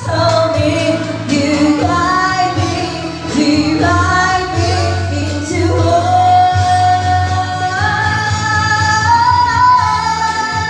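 Background music: a song sung by a woman, with long held notes over a steady bass.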